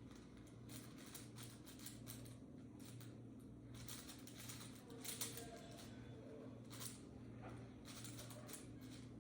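5x5 Rubik's Cube being turned quickly during a speedsolve: faint, irregular plastic clicks and clacks of the layers, in quick clusters, over a steady low hum.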